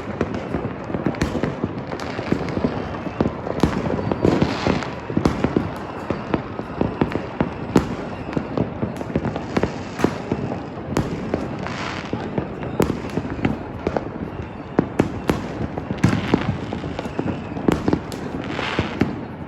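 Many fireworks and firecrackers going off at once, a dense, unbroken crackle of bangs, with now and then a brighter hiss.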